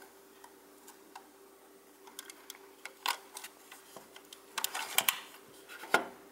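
Scattered small clicks and taps from a vintage Krauss Rollette folding camera being handled and worked, with a sharper, louder click near the end.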